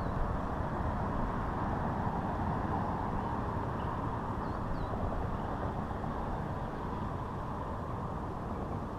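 Steady rushing outdoor background noise, with a few faint high chirps about four and a half seconds in.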